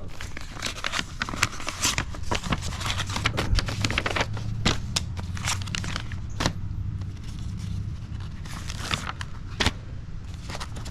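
Old paper service manuals being handled and shuffled: dry pages and booklet covers rustling and crackling, with many sharp irregular paper clicks.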